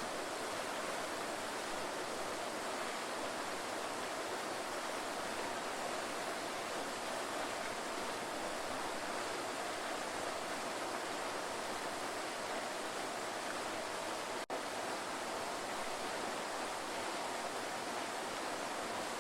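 Waterfall rushing in a steady, even roar of water noise, broken once by a split-second dropout about three-quarters of the way through.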